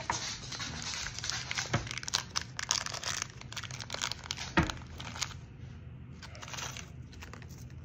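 Small clear plastic zip bag crinkling as it is handled and pulled open, with dense crackles for about the first five seconds, then quieter with a few scattered clicks.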